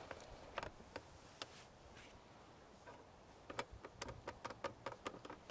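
Quiet, scattered sharp clicks and ticks, a few at first and then a quicker, irregular run of them in the second half.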